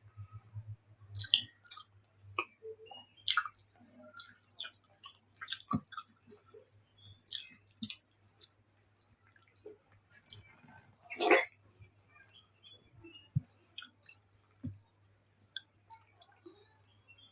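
Close-miked chewing of soft cooked food (taro curry with rice and sweet potato): wet, squishy mouth sounds and lip smacks in irregular bursts, with one louder smack about eleven seconds in.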